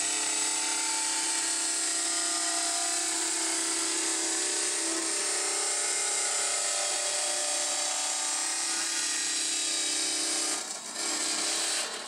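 Vertical band saw cutting through a metal plate: a steady rasping hiss from the blade with a held hum from the saw. Near the end it dips briefly, then drops off.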